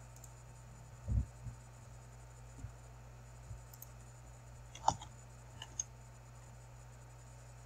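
A few sharp computer mouse and keyboard clicks near the middle, with a dull low thump about a second in, over a steady low electrical hum.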